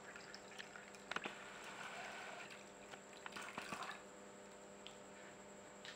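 Water poured from a plastic jug into a glass of lemon-juice shikanji base, faint, with a few light clicks; the pouring fades out about four seconds in.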